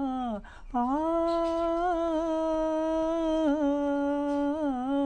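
A man singing unaccompanied takes a quick breath, then holds one long note on an open vowel, with small turns in pitch near the end.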